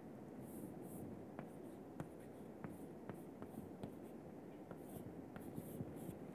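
Chalk writing on a blackboard, faint: short scratchy strokes, some in quick runs, with sharp ticks as the chalk meets the board.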